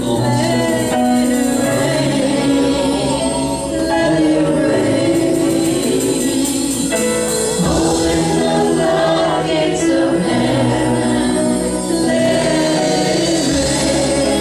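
Gospel worship music with singing, played at a steady level throughout.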